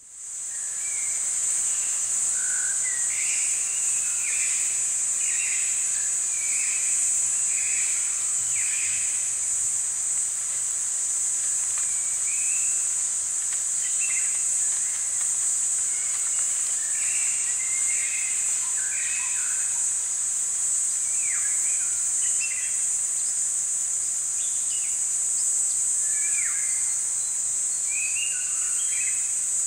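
Summer outdoor ambience: a steady, high-pitched insect drone with birds calling in short chirps throughout. It fades in over the first second.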